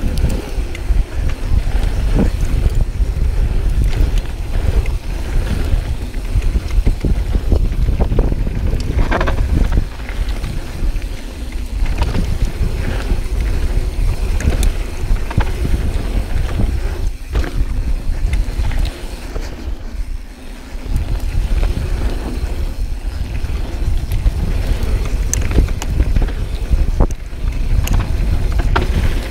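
Yeti SB6c mountain bike being ridden over a rough dirt trail: heavy wind rumble on the camera microphone, with frequent clicks, knocks and rattles from the bike and tyres. The wind eases briefly about two-thirds of the way through.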